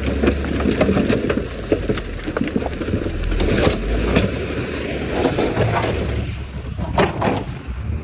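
Shacman dump truck tipping a load of rock: stones clatter and slide out of the raised steel bed over the steady hum of diesel engines, with a few sharper knocks near the end.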